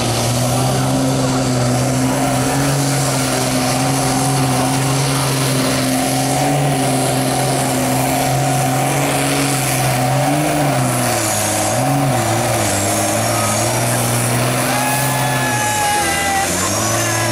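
Vintage tractor's diesel engine working hard under full load as it drags a pulling sled, holding a steady note. The pitch wavers about ten seconds in and sags briefly near the end as the engine bogs down.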